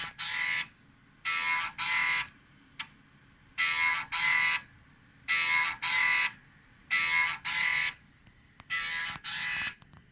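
A 5.25-inch PC floppy drive buzzing in pairs of short pitched bursts, about every second and a half to two seconds, as its head steps across a Commodore 1541 disk during a FluxEngine read.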